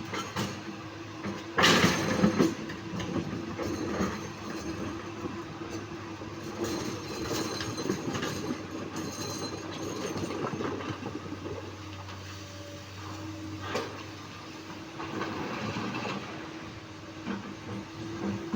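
Komatsu PC200-8 hydraulic excavator working: its diesel engine runs steadily under irregular metallic clatter and knocks, with a loud burst of knocking about two seconds in and another sharp knock near the end.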